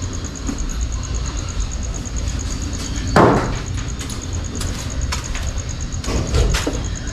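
A loud knock about three seconds in, with a few lighter clicks and taps later, over a steady low rumble.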